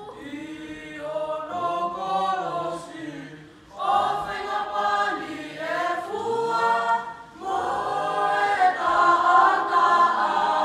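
A mixed choir of men and women singing together a cappella, in three phrases with short breaks between them.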